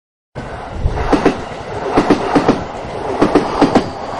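A low rumble with sharp clacks coming in groups of two or three about once a second, starting about half a second in and stopping abruptly near the end.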